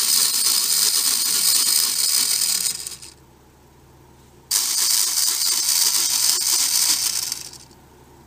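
Pull-back toy model of the US-2 rescue flying boat, its spring motor unwinding with a high rattling whir of gears spinning the wheels and rear propeller. The whir runs about three seconds and dies away, then after a short pause starts suddenly again and runs about three seconds more before winding down.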